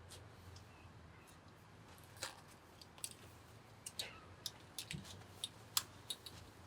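Irregular light clicks and taps, as of small hard objects being handled, coming more often in the second half.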